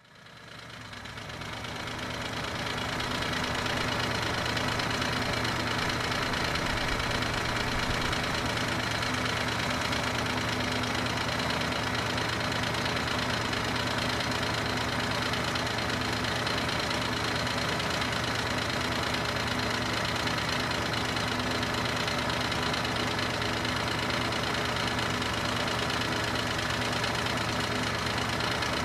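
Lancia Thema 8.32's Ferrari-built 32-valve V8 running steadily with a steady high tone over the engine note: the abnormal noise of a worn driven gear bearing, this engine's notorious weak point. The sound fades in over the first few seconds.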